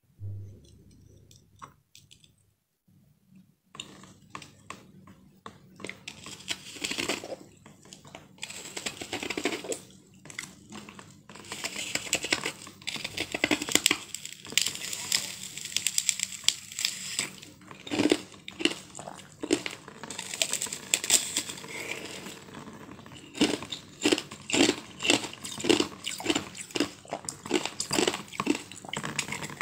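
Close-up biting and crunching of a frozen blue ice block, sharp crackly crunches with chewing between them. The crunches start a few seconds in and come about once a second near the end.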